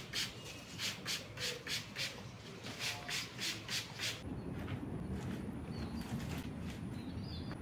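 Trigger spray bottle misting plant leaves in a quick series of hissing spritzes, about three a second. About four seconds in this gives way to outdoor ambience: a steady low rumble with a few faint bird chirps.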